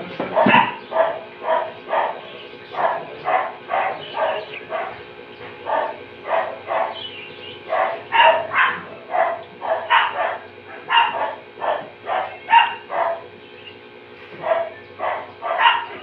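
A dog barking again and again, two or three short barks a second, with a brief pause about three quarters of the way through.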